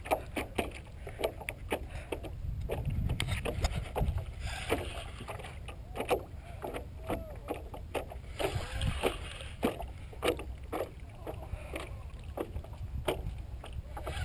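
Wind rumbling on the microphone and water against a stand-up paddleboard, with scattered irregular clicks and a few short squeaks from the spinning rod and reel under load from a hooked fish.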